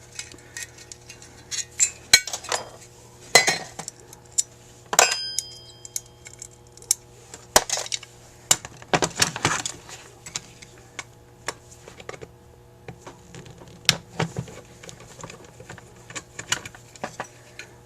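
Small metal carburetor parts and tools clicking and clinking as a Carter AFB carburetor is taken apart by hand, in irregular taps, with one ringing metallic clink about five seconds in.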